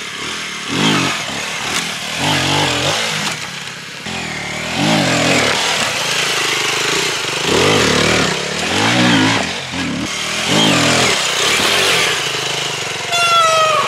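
Aprilia RX 125's single-cylinder four-stroke engine revving as the bike is ridden, its pitch climbing and dropping again every second or two. A falling whine comes near the end.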